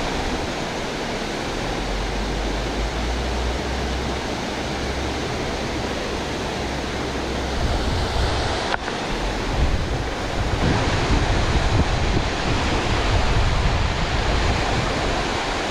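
Water rushing steadily over a low concrete weir, with wind buffeting the microphone as a rumble that comes and goes.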